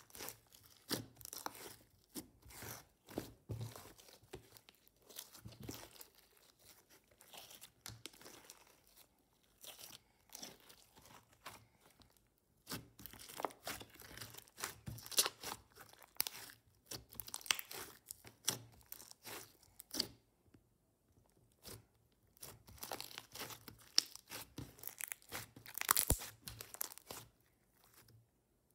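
Hands kneading, pressing and stretching a foamy slime, giving irregular short crackles and pops in clusters. The crackling pauses briefly about two-thirds through, and the loudest burst comes near the end.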